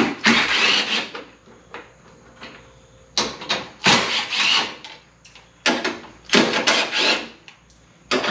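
Cordless drill/driver spinning out headlight mounting bolts in short bursts of up to a second each, about five runs with short pauses between.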